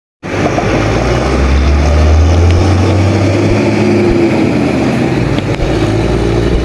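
Deep, steady rumble of a large bus's diesel engine running close by, with road noise; it cuts in abruptly a moment in.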